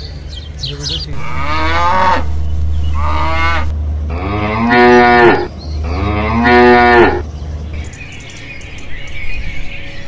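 Bovine mooing: four drawn-out moos in a row, the last two the loudest, ending about seven seconds in.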